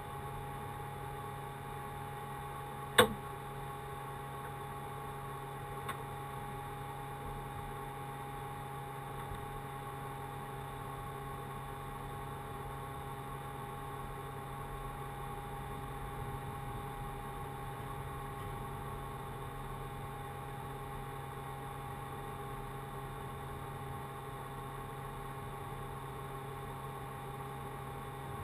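Steady low hum of several unchanging tones, broken by one sharp knock about three seconds in and a faint tick about three seconds after it.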